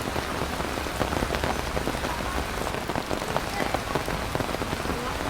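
Heavy rain falling steadily on a hard surface, a dense even hiss full of distinct individual drops and drips.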